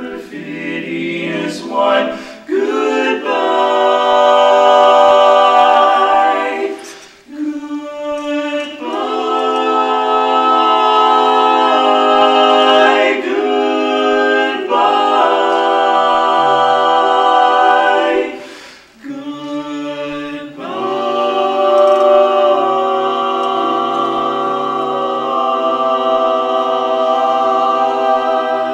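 A male barbershop quartet singing a cappella in close four-part harmony, holding long sustained chords with brief breaks about seven and nineteen seconds in.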